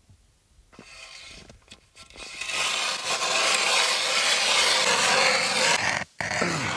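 Hand-cranked ice auger boring into lake ice, its blades making a steady rasping scrape. The scrape starts about a second in, grows loud, and breaks off briefly near the end before carrying on.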